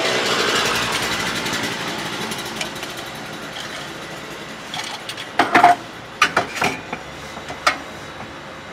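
Steel utensils knocking and clinking on a metal counter: a handful of sharp knocks in the second half, one with a short metallic ring, over a hiss that fades during the first few seconds.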